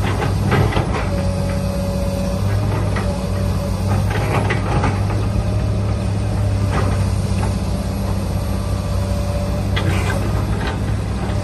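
A steady low mechanical hum, with a faint higher tone that comes and goes. Over it come a few short scrapes and clicks from a plastic toy excavator scooping sand into a toy dump truck.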